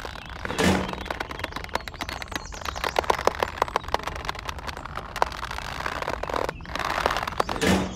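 Dry sticks clicking and clattering against each other as they are pressed into a stack by hand, with short rustling scrapes about half a second in and again near the end.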